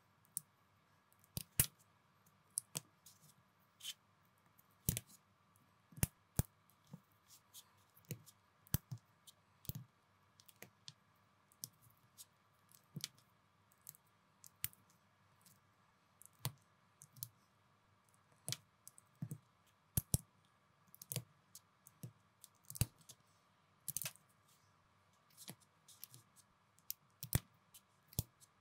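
Small plastic building bricks being handled and pressed together by hand: irregular sharp clicks and clacks, one or two a second, some in quick pairs.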